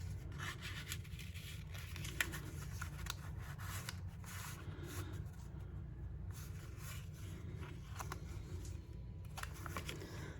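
Crimped paper being handled at a craft table: soft rustling and rubbing with scattered small clicks and snips.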